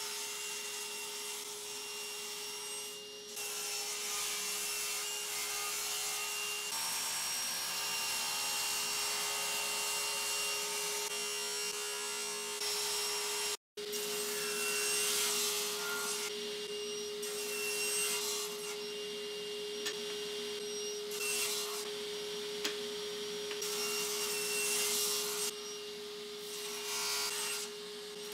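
Table saw running with a steady whine while cutting Brazilian cherry stair treads: first one long rip cut along the fence, then, after a cut in the sound, about five short crosscuts on a sled, each a few seconds of blade noise rising over the motor.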